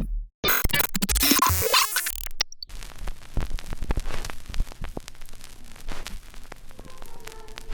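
Sound effects played one after another: a burst of glitchy, clicking electronic noise lasting about two seconds, then after a brief gap a stretch of crackling static dense with small clicks.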